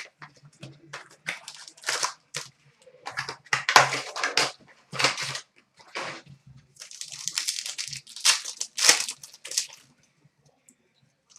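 Trading card pack wrappers crinkling and tearing as packs are opened and the cards handled, in a series of short rustles with a longer crinkle near the middle.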